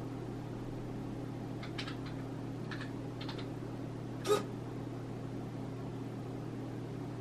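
A few faint computer keyboard key clicks, then about four seconds in a single short, louder click as an SG90 micro servo point motor shifts its arm, over a steady low hum.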